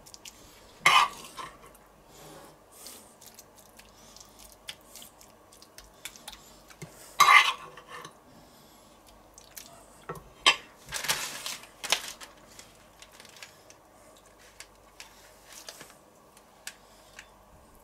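Metal spoon scraping and clinking against a frying pan as filling is scooped out. It comes in several short bursts: the loudest about seven seconds in, a longer one around eleven seconds in, and small clicks in between.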